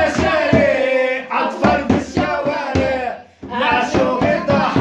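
A man singing loudly in long held phrases, with a brief break between phrases a little after the middle.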